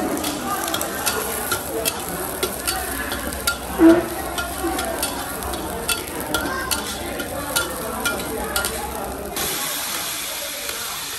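A metal ladle scraping and clicking against a steel wok as chopped aromatics sizzle in hot oil. About nine seconds in, the clicks stop and a steady, stronger hiss takes over as raw goose pieces go into the wok.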